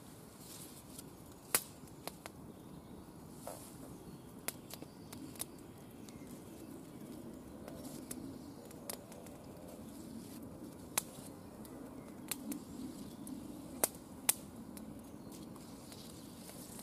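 Willow bark being pulled apart into fibres by hand close to the microphone: soft rustling, with scattered sharp clicks throughout.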